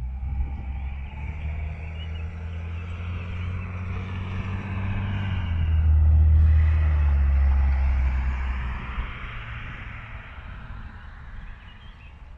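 A motor vehicle driving past: its engine and tyre noise swell to a peak about six seconds in, the engine note drops in pitch as it passes, then it fades away.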